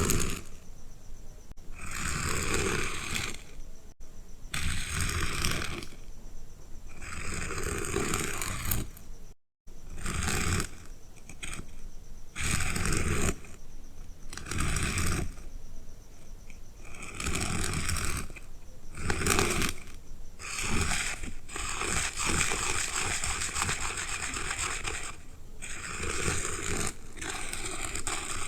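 Repeated scratchy rubbing strokes of a drawing or painting tool across paper, each lasting about a second, with short pauses between them and one brief break about a third of the way through.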